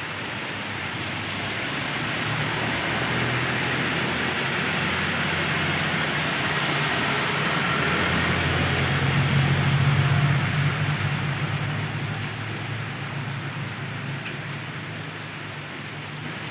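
Heavy rain pouring steadily. Under it, a passing vehicle's engine hum grows louder, is loudest about two-thirds of the way through, then fades.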